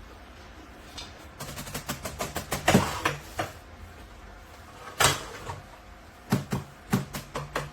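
Drumsticks striking the pads of a Donner DED-200 electronic drum kit: a run of sharp, uneven taps and knocks that starts about a second and a half in, with a few harder hits among them.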